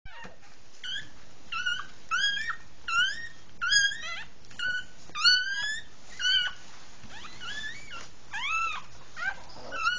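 Soft-coated wheaten terrier whining during whelping: a string of about a dozen short, high-pitched cries, each bending upward in pitch.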